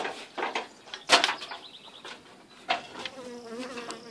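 Honey bees from a colony nested in the eaves buzzing close by, a wavering hum that is clearest in the second half. A few sharp knocks and bumps come in the first three seconds, the loudest about a second in.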